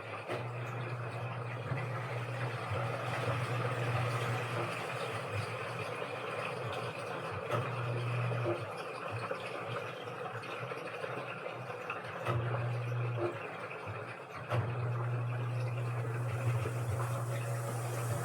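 Washing machine in its wash cycle, water sloshing in the drum. The motor hum cuts in and out in spells: two short runs of about a second, then a longer run near the end.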